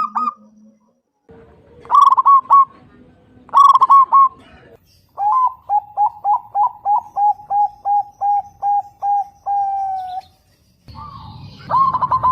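Zebra dove (perkutut) cooing. Two short bubbling phrases come first, then a long run of about a dozen quick repeated coos ending in one drawn-out note, and another phrase near the end.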